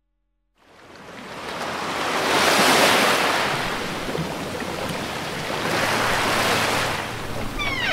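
A rushing noise fades in about half a second in and swells twice, cresting around three and six seconds in, like surf washing in. Right at the end a sliding pitched tone cuts in.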